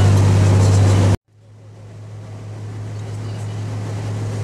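A tour boat's engine runs with a steady low hum. About a second in, the sound cuts out abruptly at an edit, then fades gradually back in with the same engine hum.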